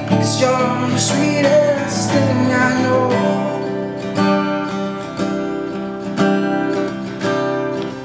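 Cutaway steel-string acoustic guitar strummed in steady chords, with accents about once a second. Over the first three seconds a wordless sung vocal line bends above the chords, then the guitar carries on alone.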